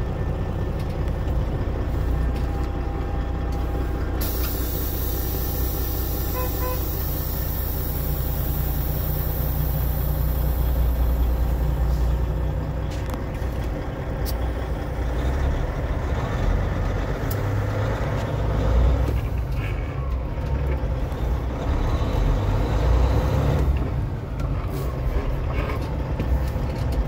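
International truck's engine running under load as the truck drives slowly, heard from inside the cab: a deep steady rumble whose engine speed rises and falls a few times. A high hiss runs for about eight seconds in the first half.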